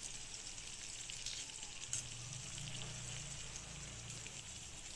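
Chicken pieces frying in hot oil in a kadai: a steady crackling sizzle with scattered small pops, and one sharp click about two seconds in.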